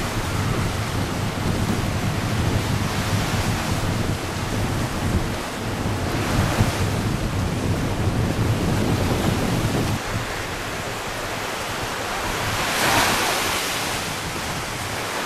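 Ocean surf breaking over a coral reef and washing up onto a sand beach, a steady rush that swells twice, about halfway and near the end. Wind rumbles on the microphone until about two-thirds of the way through.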